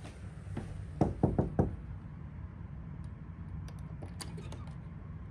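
Knuckles knocking on a bedroom door, four quick knocks about a second in, followed by a few faint light clicks.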